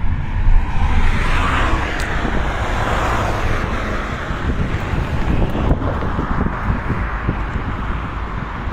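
A car driving along a road: wind rushing over the phone's microphone, which is held out of the car window, over a steady low rumble of road noise.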